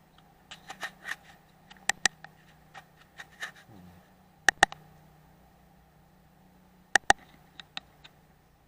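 Handling noises from an air rifle and its scope while aiming: small scratchy clicks, then three pairs of sharp clicks a couple of seconds apart, over a faint steady hum.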